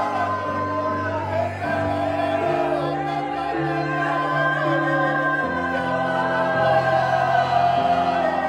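A worship congregation singing and groaning together, many voices holding and sliding between long notes, over sustained instrumental chords that change every second or so.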